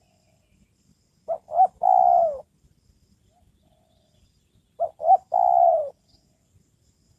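Decoy spotted dove cooing twice, each call two short notes followed by a longer coo that falls in pitch.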